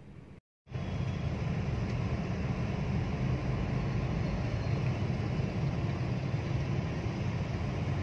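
Steady engine and road rumble heard from inside a moving car's cabin, coming in after a brief dropout about half a second in.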